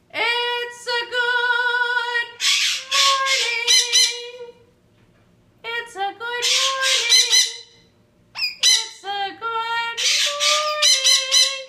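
Blue-and-gold macaw calling in three bouts. Each bout opens with drawn-out, wavering pitched notes and breaks into harsh screeches.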